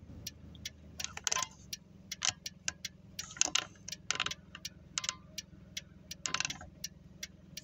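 Irregular light metallic clicks and jingles, a few each second, inside a car cabin over the low steady hum of the car's engine.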